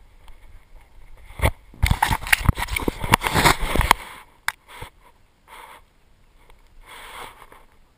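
Scraping and knocking on a GoPro strapped to a Labrador retriever's back as the dog moves and is handled. A dense run of scrapes and knocks starts about a second and a half in and lasts about two seconds, followed by a few softer rustles.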